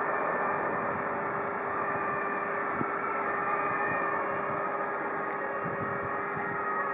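Steady street traffic noise with a vehicle engine running.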